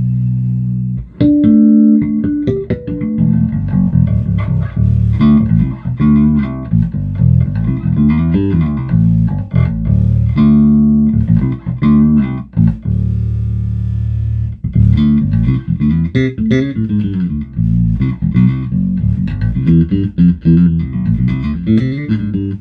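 Electric bass played live through an Aguilar Tone Hammer 500 amp head: a busy run of plucked notes, with a few longer held notes, set to a clean tone with some drive for a little saturation but no real distortion.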